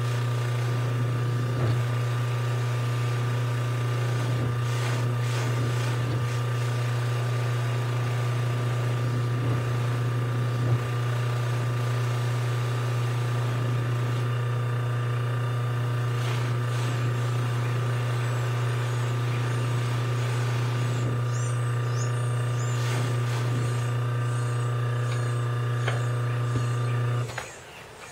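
Electric bench buffer motor running with a steady low hum while a forged aluminium Wiseco piston crown is polished against its spinning cloth buffing wheel. The hum drops away sharply near the end.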